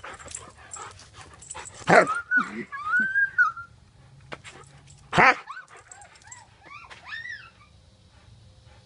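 A standard poodle whining, heard through a phone it is carrying in its mouth. Loud knocks from the phone being gripped come about two seconds and five seconds in. The first knock is followed by one long high whine, and a string of short high whimpers comes near the middle.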